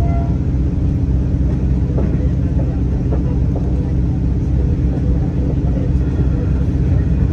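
Inside a moving V/Line diesel passenger train: the steady low rumble of the engine and the wheels on the track, with a few faint clicks.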